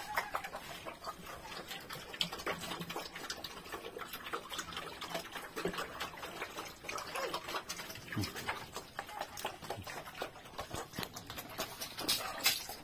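Pigs eating from a feed trough: irregular wet chewing and smacking, with an occasional short grunt. Water splashes near the end.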